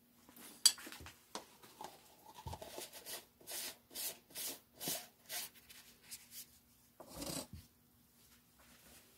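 Plastic jar and scoop of powdered sulfur being handled: a sharp click, then a run of short scraping strokes, about two a second, and a louder scrape about seven seconds in.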